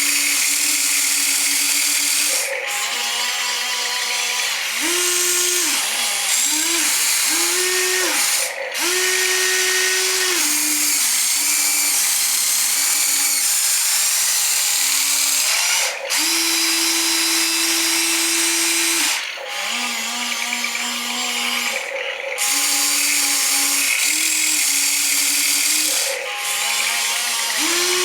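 Small electric motors whining in short runs, starting and stopping and shifting between a few steady pitches every second or two, with gear hiss, as the digger and dump truck are worked.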